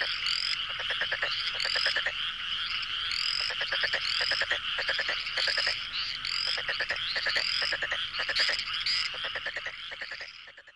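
A chorus of frogs croaking: bursts of rapid rattling croaks over a steady high chorus, with short rising chirps repeating about once or twice a second. It stops abruptly at the end.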